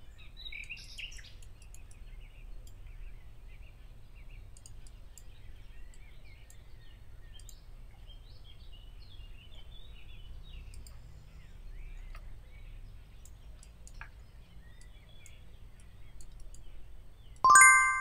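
Low steady room hum with scattered faint bird chirps and a few faint clicks. Near the end a bright bell-like chime sound effect strikes once and rings on, the loudest sound here, as a subscribe-button animation comes on screen.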